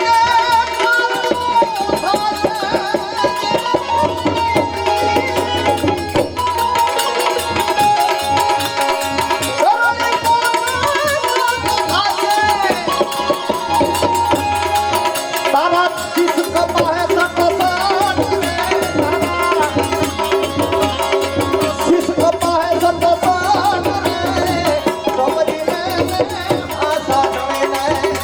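Instrumental interlude of a Gujarati santvani devotional song: tabla keeping a steady rhythm under a wavering melody line.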